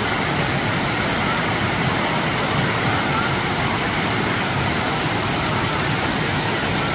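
Water rushing steadily down the stepped cascades of Dunn's River Falls, a constant even roar of falling and churning water.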